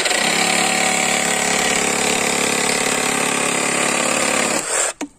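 Craftsman CMCS350B brushless cordless reciprocating saw on its low speed setting, cutting through stacked pallet wood with a bimetal blade. It runs steadily for about four and a half seconds, then stops.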